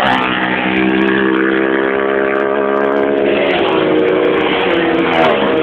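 Racing motorcycles at high revs as they pass on a road-racing course. The engine pitch holds steady, then drops about two-thirds of the way through and again near the end.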